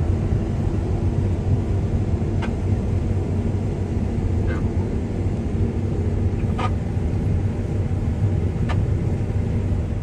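Heavy vehicle engine running steadily, a low drone with faint short ticks about every two seconds.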